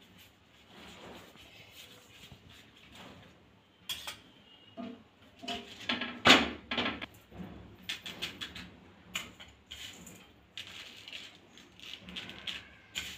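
Kitchen clatter of steel utensils: scattered clicks and taps, with one sharp clank a little over six seconds in.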